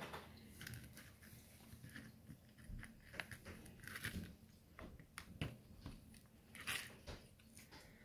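Faint, irregular clicks and crackly rustling as hands handle insulated wires and a round speaker inside a small plastic project box, with a sharper click about five and a half seconds in and again near the end.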